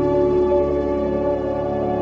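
Slow ambient background music of long, held tones, with no beat.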